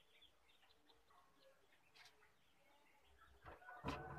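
Mostly very quiet, with faint bird calls in the background; near the end a few knocks and a clatter as the wire egg rack is set down in the wooden incubator.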